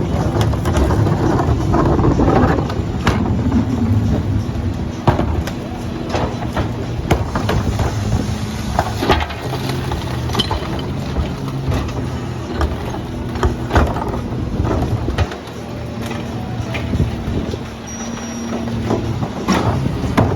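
A CNG Mack LR garbage truck runs steadily, its low engine note constant, while sharp clanks and knocks come at irregular intervals from the rear loader's collection work.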